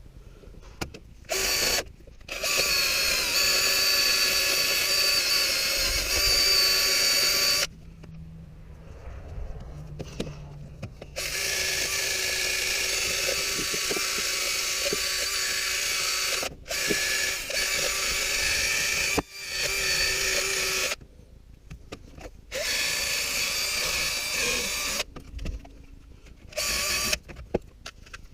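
Cordless power tool spinning a socket on fasteners, whining steadily in a series of runs, the longest about five seconds, with short pauses between.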